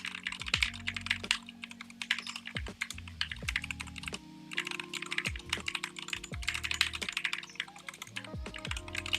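Keychron K2 mechanical keyboard being typed on quickly, a dense run of key clicks broken by a couple of short pauses.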